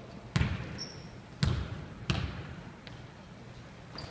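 A basketball bouncing on a hardwood gym floor: three hard, separate bounces in the first two seconds, each echoing in the hall.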